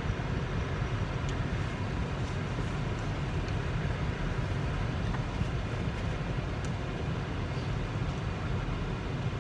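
Steady low rumble of a vehicle, heard from inside a van's cabin, with a few faint clicks over it.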